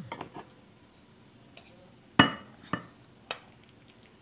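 Spoon knocking and scraping against glass bowls while potato salad is scooped from one bowl into another. There are a few sharp clinks with a short ring, the loudest about two seconds in.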